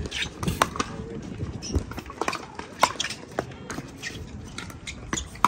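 Pickleball rally: paddles striking the hollow plastic ball in a quick exchange of sharp pops at uneven intervals, with one of the loudest hits near the end.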